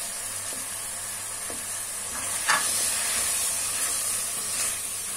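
Chicken pieces and freshly added chopped tomatoes sizzling in hot oil in a steel kadhai, stirred with a wooden spoon that scrapes and knocks against the pan a few times. The sizzle grows a little louder about halfway through.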